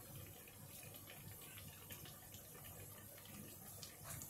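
Faint dripping and trickling of sugar syrup draining off a koeksister held on a slotted spoon into the bowl of syrup, with many small scattered drip ticks.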